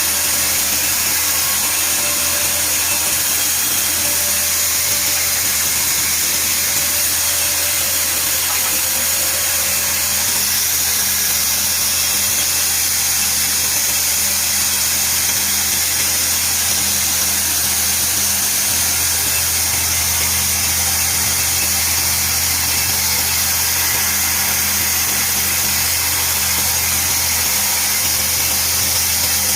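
A power tool's motor running steadily and without pause, a loud even whine and hiss over a low hum.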